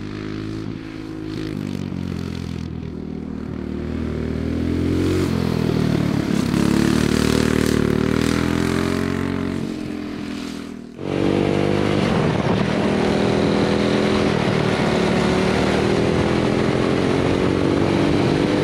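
Predator Ghost 212cc single-cylinder racing engine on a dirt kart at speed, its pitch rising and falling as the throttle comes on and off. About eleven seconds in the sound cuts abruptly and comes back at a steady high rev.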